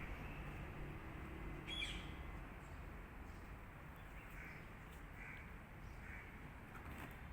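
A bird calling outdoors: one louder short call about two seconds in, then three fainter calls roughly a second apart, over steady background noise.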